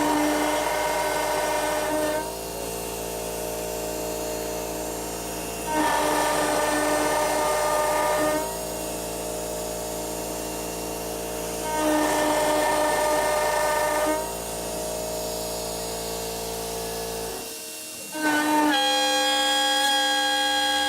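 CNC router spindle running with an 8 mm carbide cutter milling aluminium. The cutter bites into the metal in louder spells of about two and a half seconds, three times at roughly six-second intervals, with the spindle's steady whine in between. Near the end the low hum drops away and a different steady whine follows.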